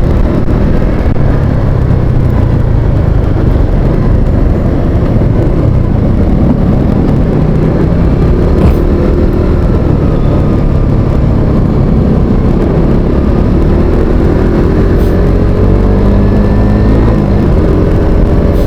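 Motorcycle engine running under way on the road, with a heavy steady low rumble; the engine note slowly rises near the end as it speeds up.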